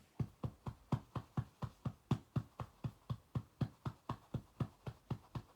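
A hand patting a baby's back in a steady rhythm of soft thuds, about four pats a second, to bring up a burp after a feed.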